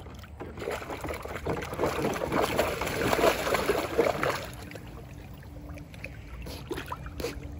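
A dog pawing and splashing in the shallow water of a plastic kiddie pool, the splashing loudest around the middle and dying down after about four and a half seconds to light sloshing and drips.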